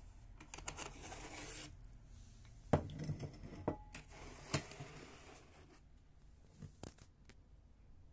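Horned frog feeding on a strip of raw meat: soft rustling and crackling with a few sharp clicks and knocks, the loudest a little under three seconds in, as the plate is moved away.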